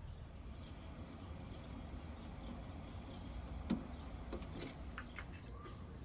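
Quiet outdoor background with a steady low rumble, a single sharp knock about halfway through, and a few faint short high ticks after it.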